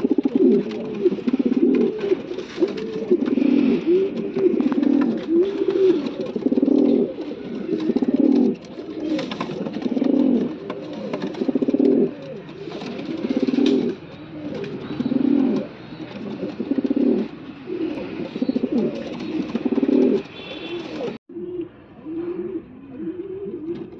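Racing pigeons cooing over and over, one low arched coo after another: the courtship cooing of a pair being put together for breeding. There is a short break near the end, after which the coos come through thinner.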